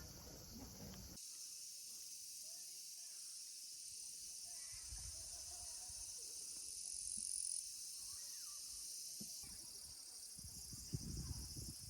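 Insects chirring in a high, even drone, with a few soft knocks near the end.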